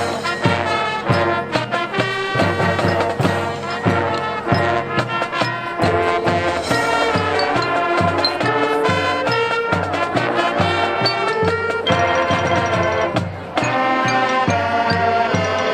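High school marching band playing a brass-led tune with a regular drum beat, briefly dropping in loudness about 13 seconds in.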